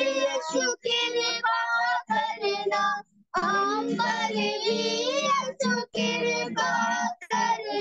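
A high voice singing a devotional melody in phrase after phrase of gliding pitch, over a steady low note. The sound cuts out briefly about three seconds in.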